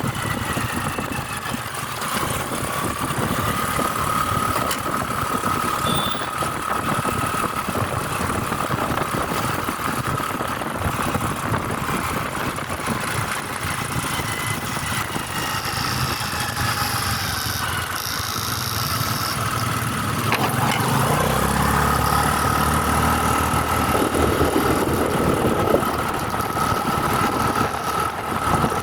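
Vehicle driving on the road: continuous engine and road noise with a steady high whine. About twenty seconds in, a deeper rumble joins and it grows a little louder.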